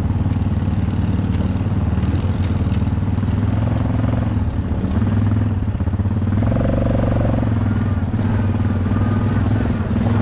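Dirt bike engine running steadily under a rider, its pitch shifting only slightly, with a few sharp clicks in the first three seconds.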